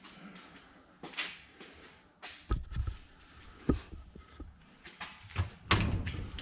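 Handling noise in a small room: a string of irregular knocks, clicks and scrapes, with a few heavier thuds in the second half.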